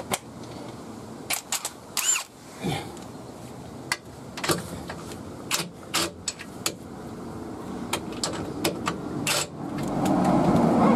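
Metal hand tools, a 17 mm socket among them, clinking and knocking at irregular intervals, with one ringing metallic clink about two seconds in. Near the end a louder steady rushing noise builds up.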